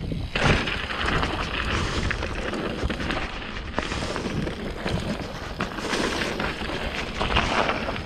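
Mountain bike riding down a rocky dirt trail: tyres rolling over rocks, dirt and leaves, with frequent knocks and rattles from the bike, and wind rumbling on the microphone.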